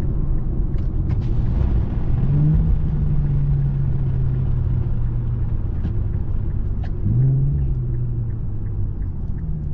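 Infiniti Q50's turbocharged engine pulling on the road, heard as a steady low drone. Its pitch climbs sharply about two seconds in and again about seven seconds in, then sinks slowly after each.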